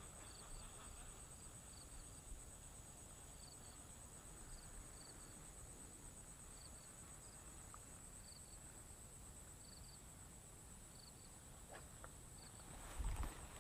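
Faint insect chorus: a steady high-pitched trill, with short double chirps repeating every second or so.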